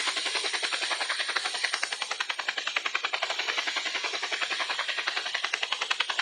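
Helicopter rotor beating fast and steadily, about a dozen blade beats a second, over a hiss of engine and air.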